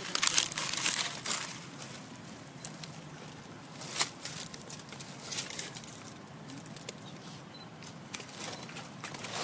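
Dry leaf litter rustling and crackling as macaques move over the stones, loudest in the first second and a half, with a sharp click about four seconds in and scattered smaller crackles after.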